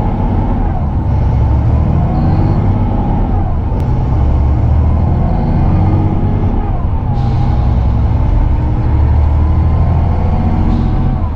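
Volvo B9R coach running along the road, heard from inside the passenger saloon: a steady low rumble of its rear-mounted 9.4-litre six-cylinder diesel with road noise, the engine note rising and falling several times.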